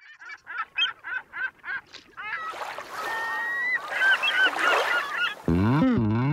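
A flock of birds calling: a quick series of about eight short, evenly spaced calls, then many overlapping calls over a steady rushing noise. About five and a half seconds in, wavering music begins.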